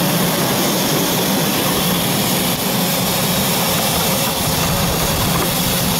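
Steady, loud hiss and rush of steam venting from a ride-on miniature live-steam locomotive, with no clear beat.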